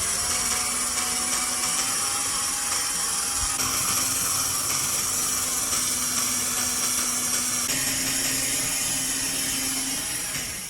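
Angle grinder running steadily at full speed, its motor whining under a bright, hissing grind, easing off slightly near the end.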